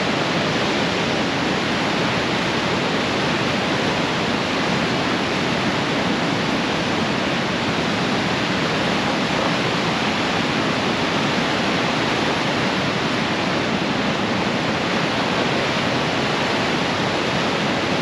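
Rapids of the Niagara River: fast whitewater rushing in a steady, unbroken wash of noise.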